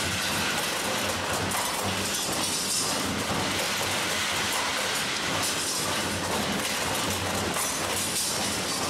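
G Star 12 SE automatic stirrup bending machine running, feeding and bending wire into stirrups: a steady mechanical noise with a low, regular pulsing.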